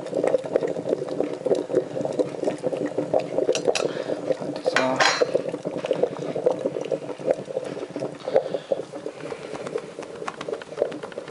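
Sunbeam C30 Coffeemaster vacuum coffee maker bubbling and gurgling steadily, with small glassy clinks and a brief louder gush about five seconds in. This is the brew near its end on low heat, just before the coffee draws back down into the lower bowl.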